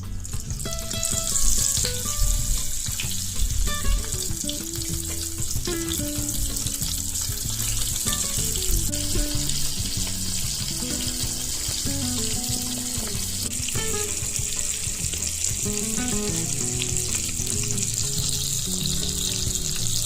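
Small prawns frying in hot oil: a steady sizzle that swells about a second in, with background music playing under it.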